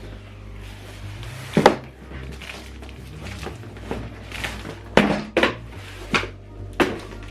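Soundbar packaging being handled and opened: a series of sharp knocks and handling noises, over background music with a steady low beat.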